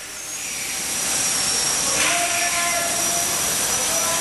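Steam locomotive letting off steam: a steady hiss that swells in over the first second, with a thin high whine running above it.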